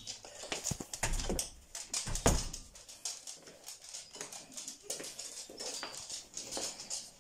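Dogs' claws clicking and tapping on a hard kitchen floor as they move about, with a few heavier thumps in the first two seconds or so.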